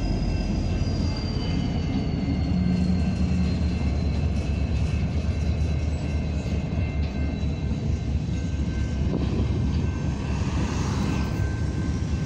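Union Pacific freight train of covered hopper cars rolling past, a steady low rumble of wheels on rail, with a faint high whine whose tone slowly falls.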